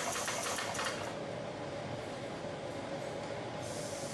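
Big Blu 155 pneumatic power hammer striking a hot bar in a fast run of blows that stops about a second in. After that the machine keeps running with a steady noise.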